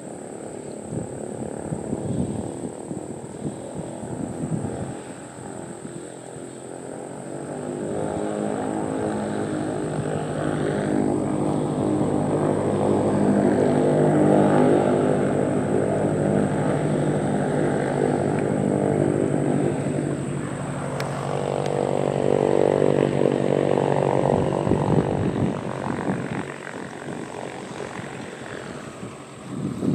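Single-engine propeller light airplane passing: its engine grows louder over several seconds, dips, swells again and dies away. Wind buffets the microphone in the first few seconds.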